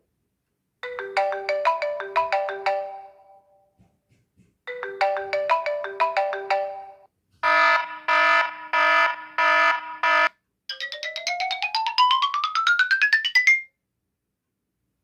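iPhone 4 ringtones playing one after another from the phone: the marimba-style default melody twice, then a ringing alert tone pulsing five times, then a fast run of notes climbing steadily in pitch.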